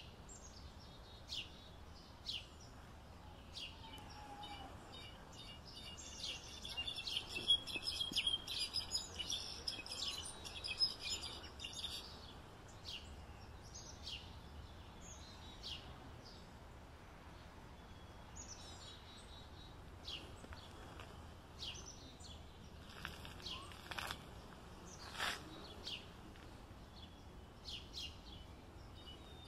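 European goldfinch song: scattered short high chirps, and a dense run of rapid twittering from about six to twelve seconds in, over a steady low background hiss.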